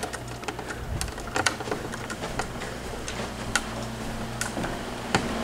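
Irregular light taps and clicks of footsteps and handling knocks while walking on a tile floor, over a faint steady low hum.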